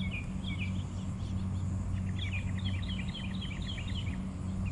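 Songbirds singing in short repeated chirps, with a fast trill of rapidly repeated notes about two seconds in, over a steady low hum.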